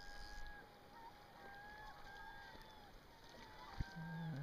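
Gulls calling: several overlapping, drawn-out mewing notes, each held about a second. A single sharp tap comes near the end.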